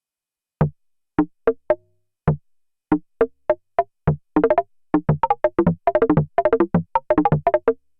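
Sequential Prophet-5 Rev 4 analog synthesizer playing a dry FM-style percussive patch, with oscillator 2 modulating at audio rate through Poly-Mod: short, plucky pitched notes that die away at once. A few scattered notes at first, then a quick, busy run of notes at varied pitches.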